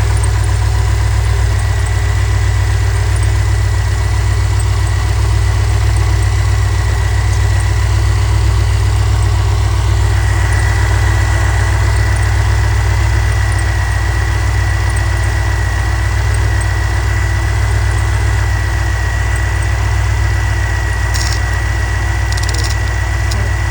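Chevrolet C10's small-block Chevy V8, fuel-injected by a Holley Sniper EFI, idling steadily while the ignition timing is checked, with a thin steady high whine above the engine note.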